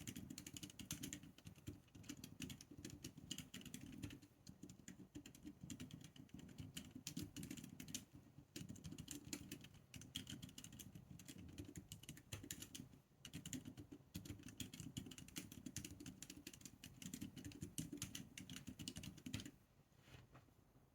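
Typing on a mechanical keyboard fitted with FEKER Aphonia Silent Pink switches: a quiet, continuous run of soft keystrokes with brief pauses, stopping shortly before the end.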